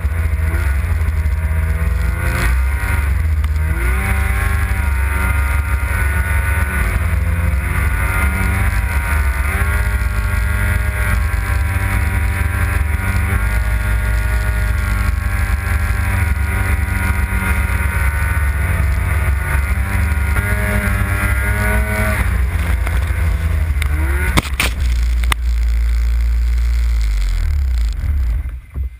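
Polaris RMK snowmobile's two-stroke engine running hard through deep powder, its pitch rising and falling with the throttle. A couple of sharp knocks come near the end, and the sound drops away suddenly in the last second.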